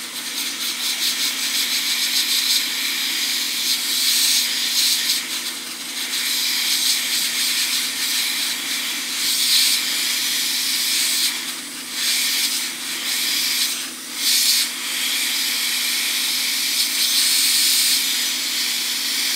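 Hot-air rework gun running, a steady hiss of blown air over a steady low hum, heating a surface-mount fuse on a circuit board to melt its solder and free it. The hiss dips briefly twice about two-thirds of the way through.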